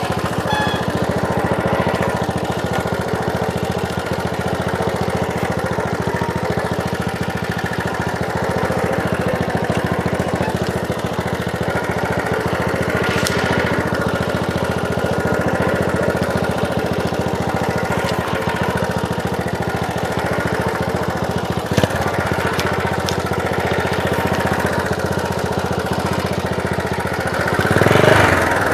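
Small Honda trail motorcycle's single-cylinder engine running steadily, with a brief rise in loudness near the end.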